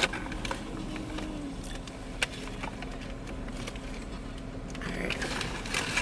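Two people biting into and chewing bacon cheeseburgers, with soft, uneven mouth and chewing noises and one sharp click a little over two seconds in.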